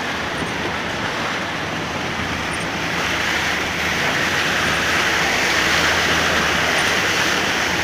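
A vehicle's tyres driving through a flooded street, a steady rushing of water thrown up beside it that grows louder about three seconds in.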